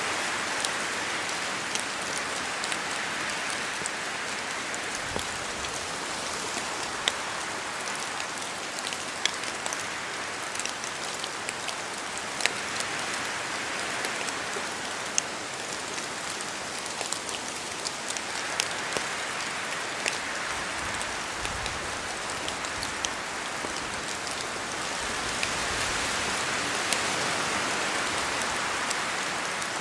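Steady rain falling in a forest, with sharp individual drops ticking down from the trees throughout. A rushing hiss swells and fades in slow waves, as gusts of wind move through the canopy.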